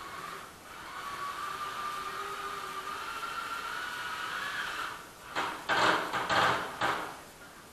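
A small motor running with a steady whine that stops about five seconds in, followed by a quick run of five or six loud, scraping strokes.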